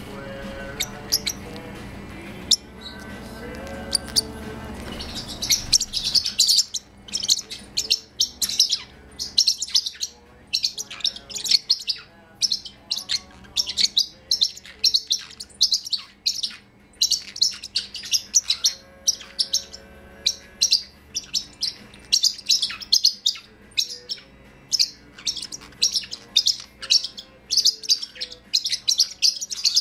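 Parrotlets chirping: short, sharp, high chirps in quick runs, several a second, starting about five seconds in and going on almost without pause.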